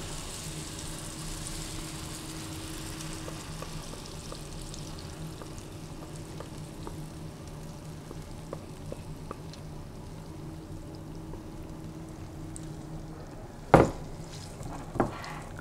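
Cornbread and mac and cheese batter sizzling in a hot cast iron skillet as it is poured in and spread with a wooden spoon, a steady quiet sizzle with small ticks. A single sharp knock comes near the end.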